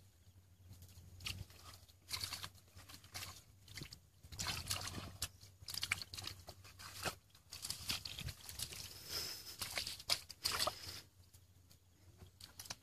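Hands groping and scooping through shallow muddy water, with irregular sloshing, splashing and squelching of mud.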